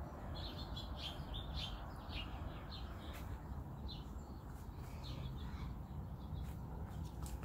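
Small birds chirping in short, quick chirps, thickest in the first couple of seconds and then scattered, over a steady low rumble.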